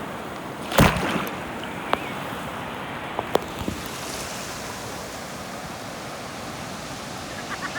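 Surf washing in, a steady rush of water noise, with a loud short thump about a second in and a few faint sharp clicks after it.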